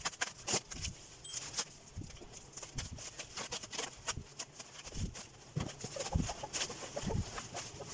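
Bubble wrap crinkling and rustling in quick irregular crackles as it is pulled off a cardboard box, with a few dull thumps of the box being shifted in the second half.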